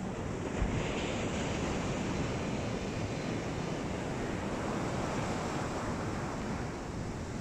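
Steady rush of ocean surf mixed with wind buffeting the microphone, with a brief low thump about half a second in.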